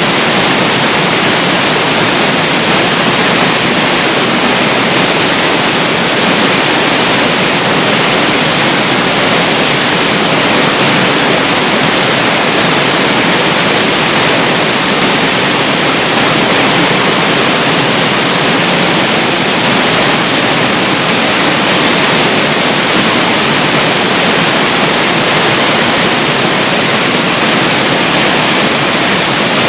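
Water pouring down a large artificial waterfall: a steady, unbroken rush of falling water.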